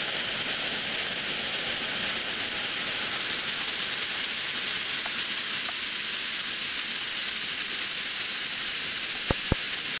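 Waterfall: water cascading over rocks in a steady rushing hiss. Near the end, two sharp knocks come close together.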